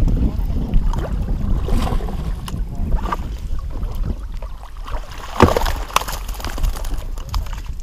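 Wind buffeting the microphone, and water splashing as a landing net scoops a hooked bass out of the lake. The loudest splash comes about five and a half seconds in.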